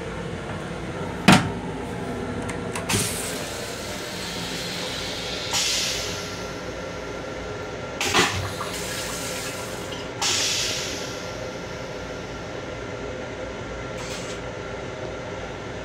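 Stainless steel toilet of an M7 railcar flushing: a loud sharp clunk about a second in, then rinse water hissing into the bowl in several short spurts, with another clunk about eight seconds in. A steady railcar hum runs underneath.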